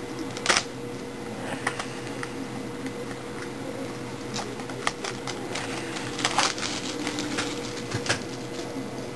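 A hockey card box and its foil packs being opened by hand: scattered crinkles, clicks and tearing of the wrappers, densest about six seconds in, over a faint steady hum.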